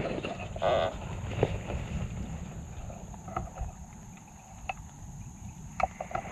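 Low, irregular rumble of wind and handling noise on a rifle scope-mounted camera's microphone, with a brief pitched call about half a second in and a few small scattered clicks.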